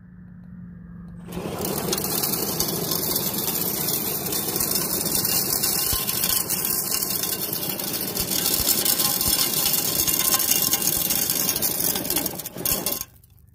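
Axial SMT10 Grave Digger RC monster truck pulling a weighted sled across gravel at full throttle: its electric motor and drivetrain whine while the tyres churn and the sled scrapes the stones. The noise starts about a second in, holds steady, and cuts off suddenly near the end as the truck reaches its limit at 18 pounds.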